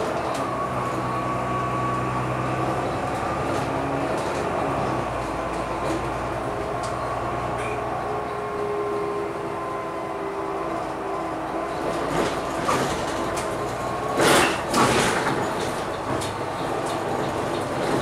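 Volvo B9TL double-decker bus's nine-litre six-cylinder diesel and gearbox running on the move, heard from the front of the lower deck, with a whine that glides in pitch and light rattles. About 14 seconds in come two short, loud bursts of noise.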